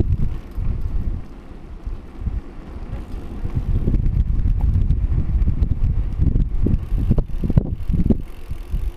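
Wind buffeting the microphone over the low rumble of a bicycle rolling on a paved path, easing for a moment about a second and a half in. Several sharp rattles and knocks near the end, typical of the bike jolting over bumps.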